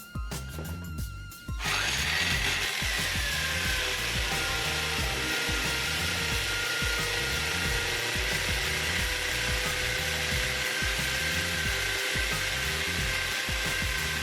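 Electric drill fitted with a 15-inch bit, boring through a thick wall: it starts about a second and a half in and runs steadily and loudly, with a whine that drops slightly in pitch as the bit bites. Background music plays briefly before the drill starts.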